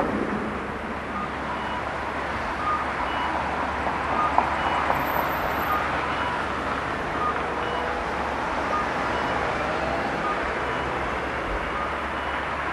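Steady city street traffic at a busy intersection, with cars, vans and trucks driving through. Faint short electronic beeps at two pitches repeat about once a second over it, and there is one sharp knock about four seconds in.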